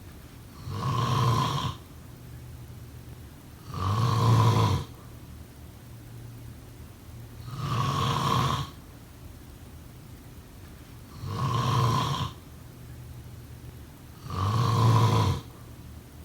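A person snoring steadily: five loud snores, each about a second long, coming about every three and a half seconds.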